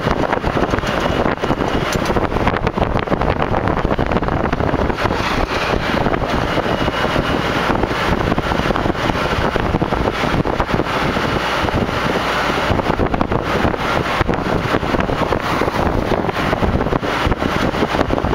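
Wind buffeting the microphone over the steady road noise of a moving vehicle, loud and unbroken throughout.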